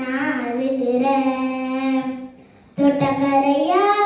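A young girl singing a Tamil folk song unaccompanied into a microphone, holding long notes. She pauses briefly for breath a little over two seconds in, then sings on.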